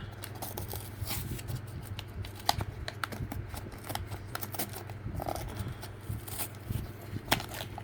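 Hands working at a stubbornly glued cardboard toy blind box: a run of small clicks, taps and scrapes of cardboard and plastic, over a steady low hum.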